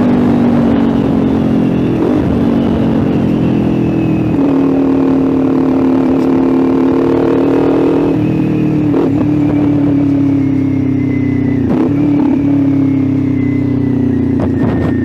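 Kawasaki Ninja 400's parallel-twin engine running through an SC Project aftermarket exhaust, held at a steady cruise while riding, with brief dips in pitch about three times.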